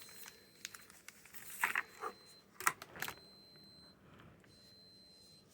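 Plastic wrapping around a new socket set crinkling and rustling as it is handled, in a few short bursts over the first three seconds.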